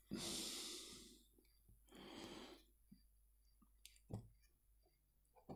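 Near silence with two soft breaths, near the start and about two seconds in. A few faint clicks come from component leads being pushed into a solderless breadboard, the sharpest about four seconds in.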